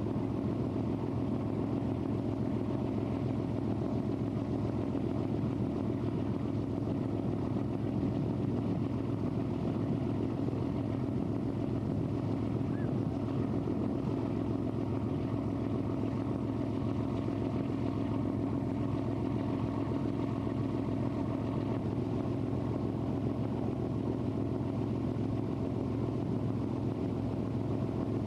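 Cruise ship's engine running under way, a steady low drone that holds at one pitch and level throughout.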